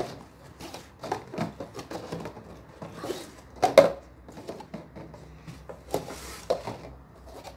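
Clear disposable plastic cups being set down on a table and stacked rim-to-rim into pyramids, a string of light, irregular clacks. The loudest clatter comes a little before four seconds in.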